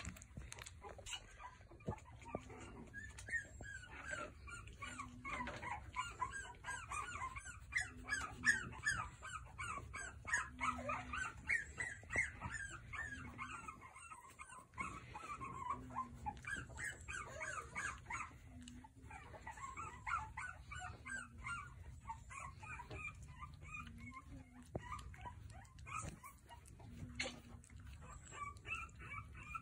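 A litter of very young French Bulldog puppies whimpering and squealing, with many short high calls overlapping one another.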